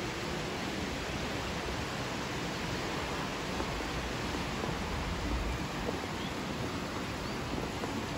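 Brandenberger Ache, a fast-flowing Alpine river, rushing steadily below the bridge as an even hiss.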